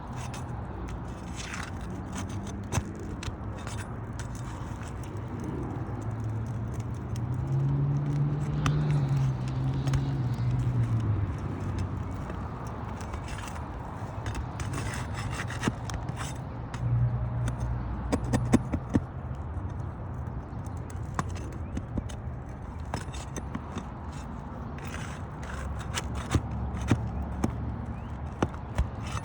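Scraping and scattered sharp clicks of hand tools working asphalt roof shingles loose during a shingle repair. A low engine hum swells and fades about a third of the way in.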